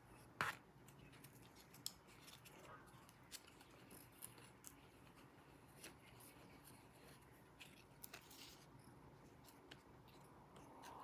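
Faint, scattered light clicks and rustles of a paper engine model being handled and turned in the hands; otherwise near silence.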